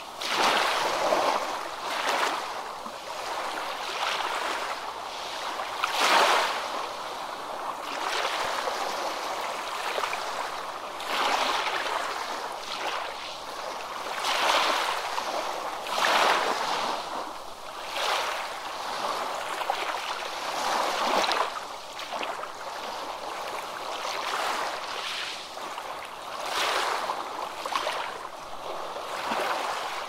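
Ocean waves washing and splashing, the hiss of breaking water swelling and falling away every few seconds, with little low rumble.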